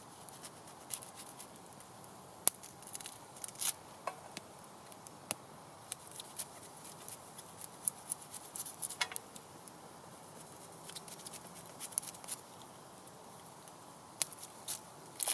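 Knife cutting a leek into small pieces: irregular crisp cuts and ticks, a few sharper clicks among them.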